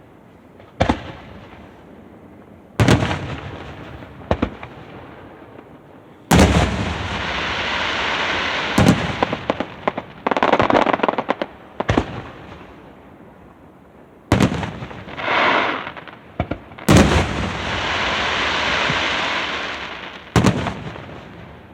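Aerial fireworks shells bursting overhead in a string of sharp booms, about nine over twenty seconds. Several of the booms are followed by a few seconds of loud hissing crackle.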